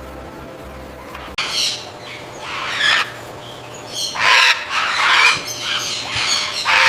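Blue-and-gold macaws giving a series of harsh squawks, about six of them, starting about a second and a half in.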